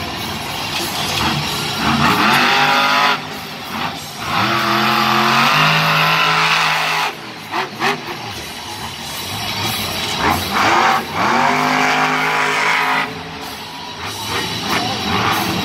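Monster truck engines revving hard. The pitch climbs and drops back several times as the trucks race and jump over the dirt track.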